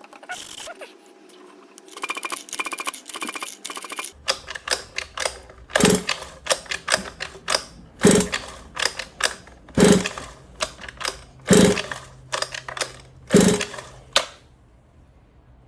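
Recoil pull starter on a 1/5-scale Rooster Tail 30.5 two-stroke petrol engine. A rapid rattle of clicks is followed by five hard pulls about two seconds apart, with the engine turning over in quick clattering strokes. It never fires, as the engine is refusing to start.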